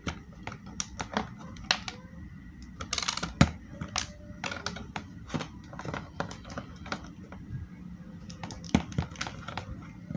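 Cutting pliers clicking irregularly as they score and strip insulation from electrical cable wires, with a short scraping rasp about three seconds in as insulation is pulled off.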